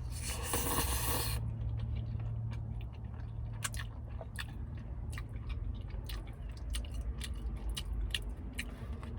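Close-miked chewing of Jolli Spaghetti, with many small wet clicks and smacks of the mouth, after a second-long noisy swish at the start. A low steady hum runs underneath.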